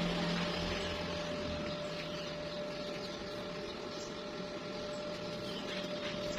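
Stick-welding (SMAW) arc crackling steadily as a vertical weld is run, with a faint steady whine underneath.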